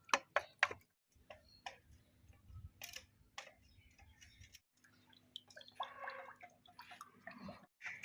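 Water dripping in irregular single drops and ticks, as rainwater drips off surfaces after heavy rain.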